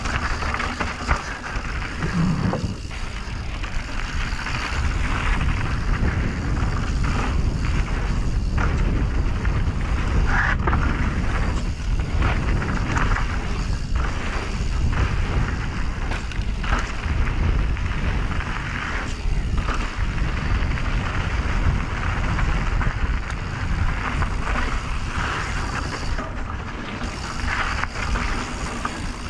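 Canyon Strive mountain bike being ridden fast downhill: steady wind buffeting on the microphone with tyre noise, broken by frequent knocks and rattles from bumps and landings.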